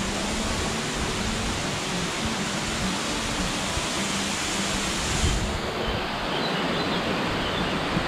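Waterfall pouring, a steady rush of water; about five seconds in, the highest hiss drops off suddenly while the rush goes on.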